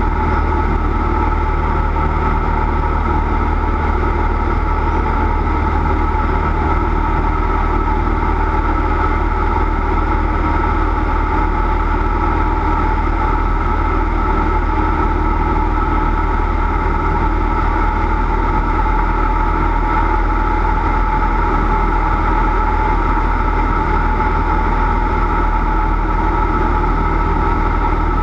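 Cessna 172's piston engine and propeller running steadily, a constant low hum with a few steady higher tones and no change in pitch.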